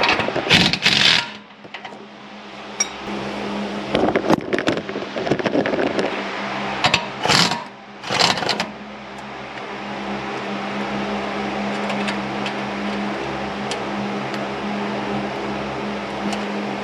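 Hand tools working a nut on a Jeep Wrangler sway bar link: four short bursts of metallic clicking and rattling in the first half, over a steady hum that carries on alone afterwards.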